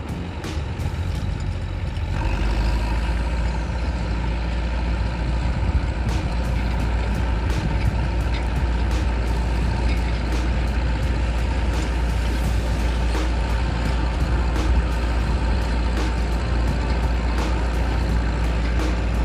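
Bulldozer's diesel engine running steadily close by as a low rumble that gets louder about two seconds in, with scattered sharp clicks over it.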